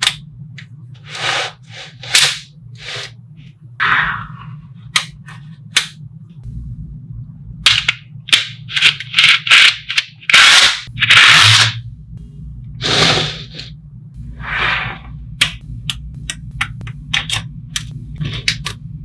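Small magnetic balls clicking sharply as they snap together, one by one and in quick runs, with longer rattling swishes as clusters of balls are shifted and rolled against each other. A low steady hum runs underneath.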